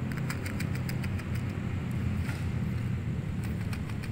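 Steady low background rumble, with scattered light clicks and ticks over it, thickest in the first second and a half.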